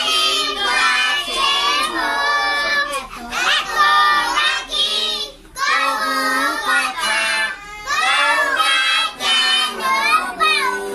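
Young children's voices singing together, with held, pitched notes broken into short phrases.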